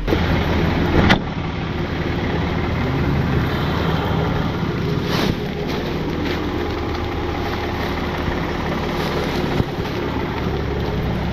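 Tow truck's engine idling steadily, with a single sharp knock about a second in.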